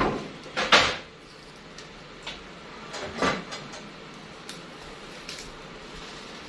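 A knife tapping on a wooden cutting board as a red onion is sliced, with a few faint irregular ticks. Two loud sharp knocks or clatters come in the first second and another about three seconds in.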